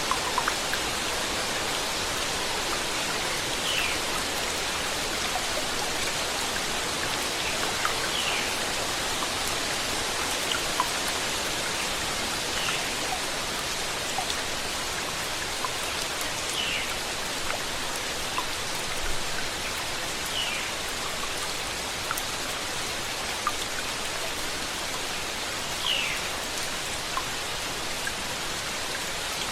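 Steady rain, with individual drops ticking on a surface. A short, high falling chirp recurs about every four seconds.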